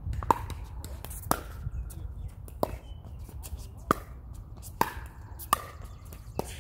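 A pickleball rally: paddles striking the hollow plastic ball back and forth, about seven sharp pocks roughly a second apart.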